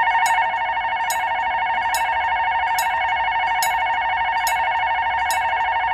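Korean railroad crossing warning bell ringing continuously in a rapid electronic ding-ding, warning that a train is approaching. A sharp click repeats a little more often than once a second over the ringing.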